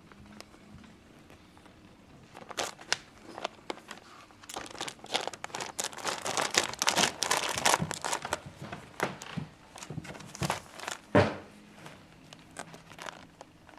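Quilted fabric dog bedding rustling and crinkling under Chihuahuas' paws as the puppies and an adult dog move and scrabble on it. The rustling comes in irregular scratchy strokes that grow dense in the middle, with one louder thump about eleven seconds in.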